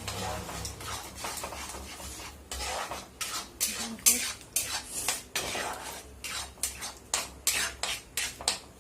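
Spoon scraping and clattering in a pan while stirring masala paste frying in oil, with a steady hiss at first, then quick, irregular scraping strokes, about two a second, from a couple of seconds in.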